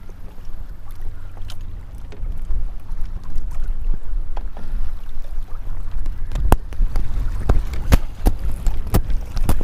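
Wind rumbling on the microphone over water lapping at a kayak on choppy water. From about six and a half seconds in, a run of sharp clicks and knocks.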